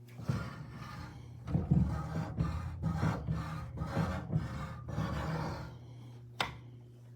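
A key being worked back and forth in the steel safe's lock: a run of rubbing, scraping strokes, two or three a second, as a key that won't turn all the way is forced. A single sharp click comes near the end.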